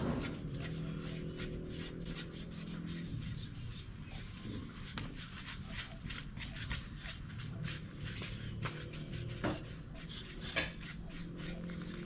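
Knife blades scraping the hair off a wet piglet carcass: many short scraping strokes in quick, irregular succession, with a couple of louder strokes near the end.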